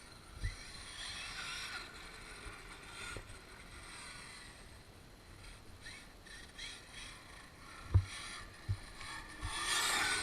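Traxxas X-Maxx 8S electric RC monster truck driving, its motor and drivetrain whining up and down with the throttle over tyre noise. Several short thumps come through, the loudest about eight seconds in, and the whine grows louder near the end.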